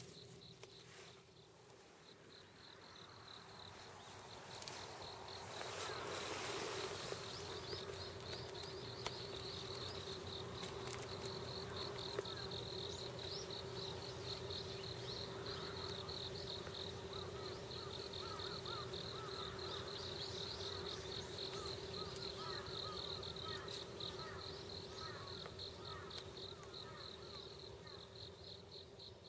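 Insects chirping in a steady chorus, a fast pulsing trill high up over a low steady hum. A brief rustling swell comes a few seconds in, and short chirps join from about twelve seconds in.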